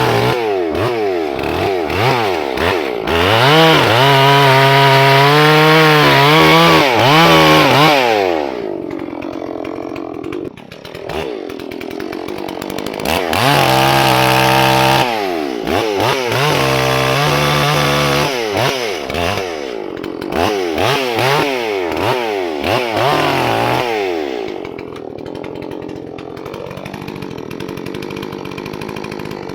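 Holzfforma G466 (Stihl 046 clone) two-stroke chainsaw running, revved up and down in quick blips and held at high revs for a few seconds several times, then dropping back to idle for the last few seconds.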